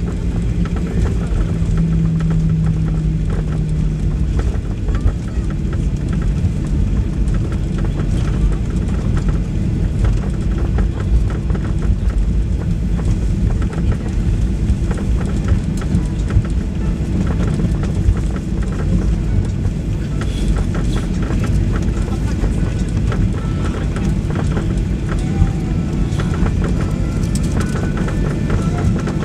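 Cabin noise of a Boeing 737 MAX airliner: a steady deep rumble with many small knocks and rattles throughout.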